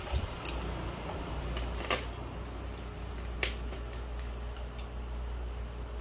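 About half a dozen sharp, separate clicks spread irregularly over a steady low hum.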